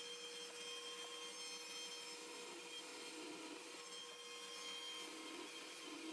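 Electric drill running steadily with a constant whine while drilling screw holes through aluminum parts.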